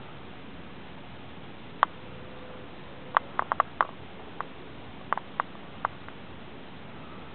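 Three-day-old kittens nursing, giving tiny, sharp squeaks: one about two seconds in, a quick run of several a second later, then a few more spaced out. Steady hiss from a small camera's microphone lies under them.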